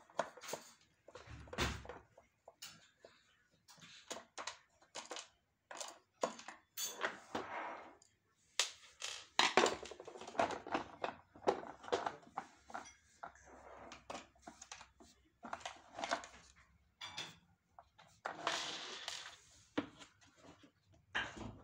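Irregular plastic clicks, knocks and scrapes from a Samsung canister vacuum cleaner being taken apart: a screwdriver working the screws of the motor housing, then the housing being handled and lifted out to remove the motor.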